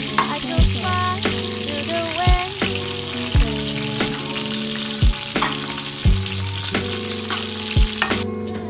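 Food sizzling and frying in a pan, a steady hiss that cuts off near the end, under background music with a regular drum beat.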